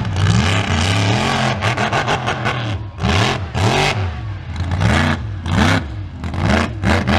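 Mega truck's big engine running hard, then revved up and down in quick repeated bursts about twice a second from about three seconds in, as the truck throws up dirt.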